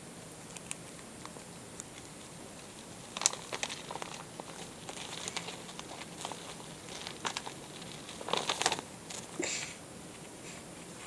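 Paper bag crinkling and rustling as pet rats rummage inside it for treats, in scattered crackly bursts that start about three seconds in, the busiest cluster coming late.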